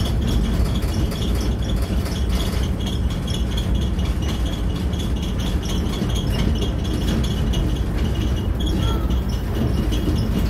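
Rumble and rattle of an electric road train's open passenger carriage running along a road, with a steady high buzz over it.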